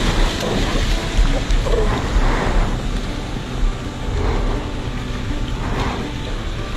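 Wind buffeting the microphone over open sea, with a steady low rumble and waves washing against a boat in a few swells of splashing noise.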